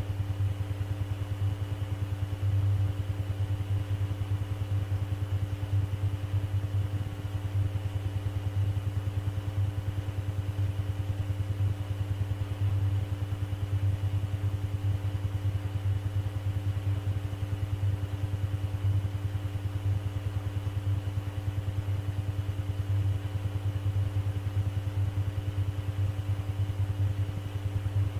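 Steady low electrical hum with a fine rapid buzz and faint steady higher tones: the background noise of an air traffic control radio recording with no one transmitting.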